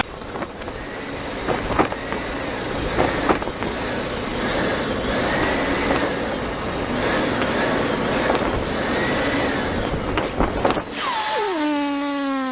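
Vehicle noise, with a few faint rising-and-falling tones, then a loud falling tone with several overtones near the end.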